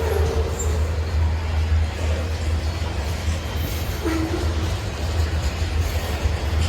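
CSX train running by with a steady low rumble, with short faint tones near the start and again about four seconds in.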